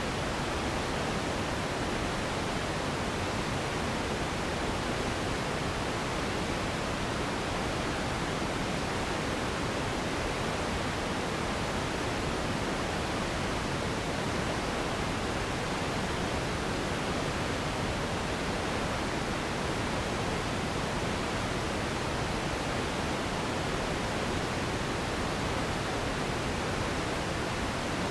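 Steady, unchanging relaxation noise for sleep: an even hiss, fullest in the lows and mids and softer in the highs.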